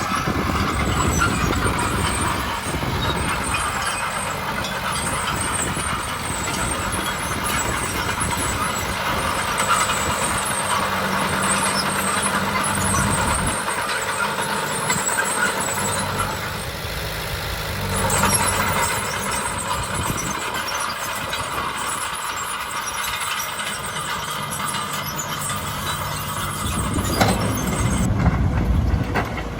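Heavy diesel construction machinery running and working, with the engine note changing several times.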